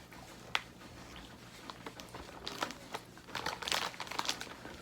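Plastic snack wrapper crinkling in scattered crackles, with a sharp click about half a second in and a denser stretch of crinkling in the second half.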